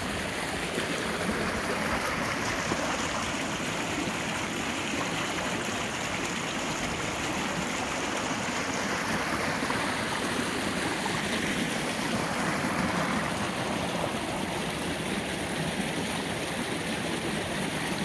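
Stream water rushing steadily.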